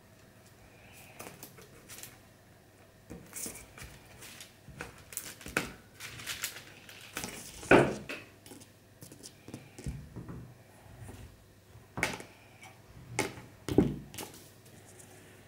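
Pliers and a length of wire being handled on a table: scattered small clicks, taps and rustles, with two louder clacks about eight and fourteen seconds in.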